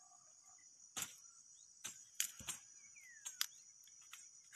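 Insects keeping up a steady, high-pitched drone in the field, with a few sharp cracks scattered through it and a brief falling whistle about three seconds in.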